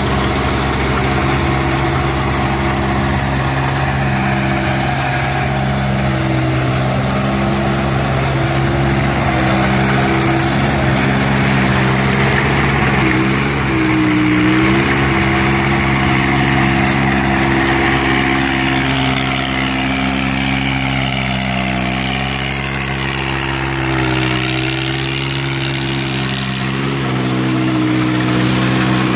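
VST Shakti MT 180 mini tractor's three-cylinder Mitsubishi diesel running steadily under load as it drives a heavy rotavator through the soil.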